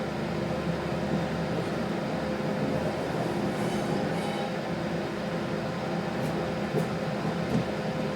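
Steady running noise inside a 3100-class diesel railcar under way: a hum from the underfloor engine and drive over the rumble of wheels on rails, with a few light clicks late on.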